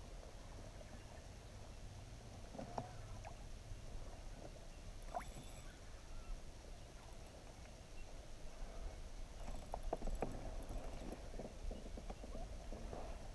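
Faint on-the-water sounds from a fishing kayak: a steady low rumble with scattered soft knocks and clicks as a spinning rod and reel are handled, the clicks bunching up about ten seconds in.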